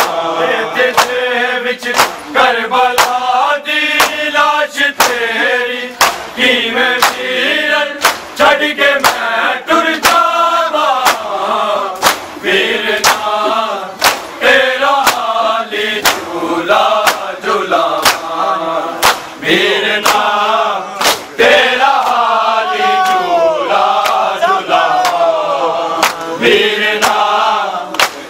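Men chanting a noha, a mourning lament, over a steady rhythm of sharp hand slaps from mourners beating their bare chests in matam.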